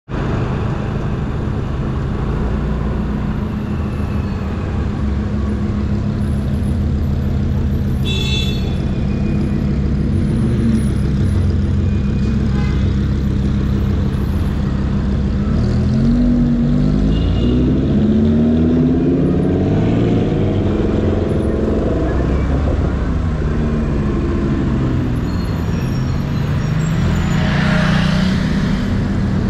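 Steady motor-scooter ride noise with wind rumble on the microphone. From about halfway through, a sports car's engine revs up and down several times in overlapping rises and falls.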